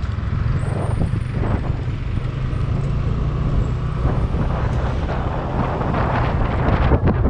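Motorcycle engine running steadily while riding at low speed, with a low, even drone and the noise of the ride over it.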